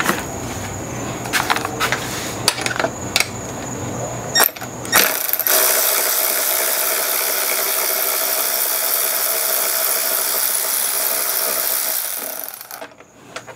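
Cordless power tool backing out the fuel tank bolts on a Suzuki GSX-R1000. First come a few clicks and knocks as the tool is set on the bolt. About five seconds in, the motor starts and spins steadily for about seven seconds, stopping near the end.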